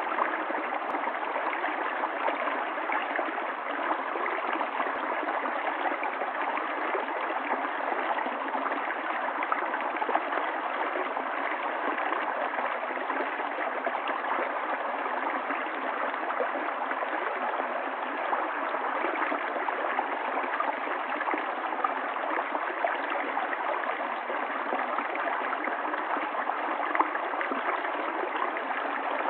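Stream water flowing steadily, a continuous even rush of running water with no breaks or changes.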